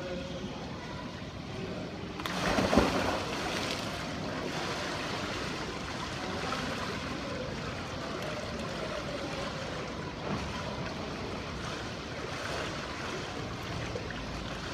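A person jumping into a swimming pool: one loud splash about two seconds in, then steady water sloshing around him as he floats.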